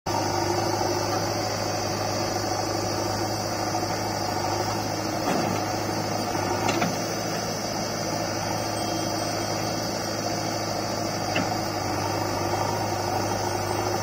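Heavy diesel engine idling steadily with a low hum, with a few faint clicks.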